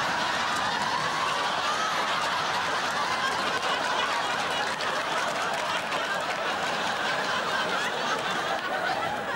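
Studio audience laughing steadily, a continuous mass of chuckles and laughter.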